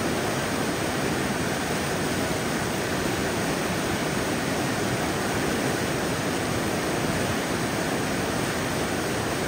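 Steady, unbroken rush of a river's white-water rapids and a waterfall.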